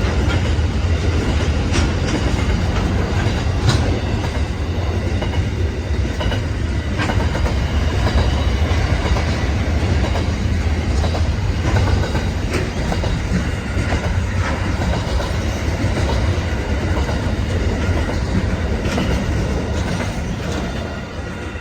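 Freight train wagons rolling past at speed: a steady heavy rumble with the clickety-clack of wheels over rail joints, easing off slightly near the end.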